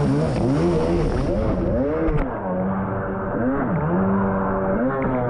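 1990 Kawasaki JS550SX stand-up jet ski's two-stroke engine with a Coffman half-pipe exhaust, running under way and revving up and down repeatedly in quick rises and falls. It holds steadier revs in the middle stretch. About two seconds in the sound turns muffled.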